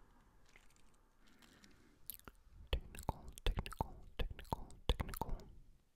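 Wet mouth clicks and lip smacks right up against the microphone. A faint breathy start gives way, about two seconds in, to a quick irregular run of clicks that stops shortly before the end.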